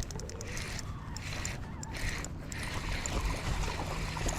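Water splashing and sloshing against a fishing kayak, with a low rumble under it.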